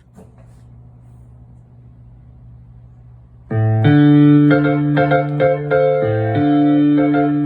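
A Nord Electro 3 stage keyboard played in sustained chords that come in suddenly about halfway through, changing a few times. A faint low hum comes before them.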